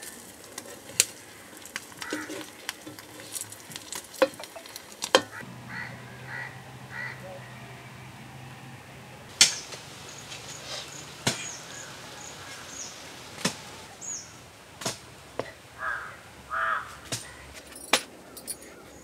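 Birds calling now and then, among them short caw-like calls, over scattered sharp clicks and knocks.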